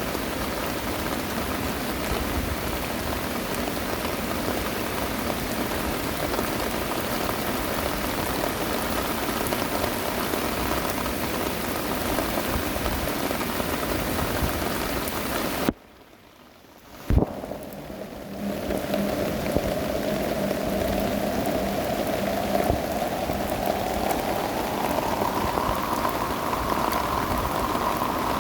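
Heavy rain pouring down steadily on surfaces. About two-thirds of the way in, the sound cuts out almost completely for a second or so and comes back with a sharp click.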